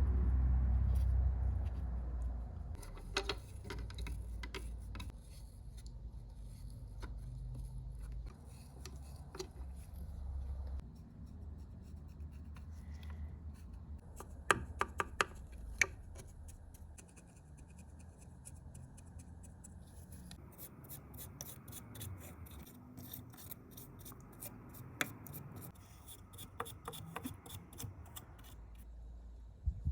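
Hand-tool work: rubbing and scraping with scattered sharp clicks and taps, a cluster of loud clicks about halfway through and a fast run of clicks in the second half, over a low rumble at the start.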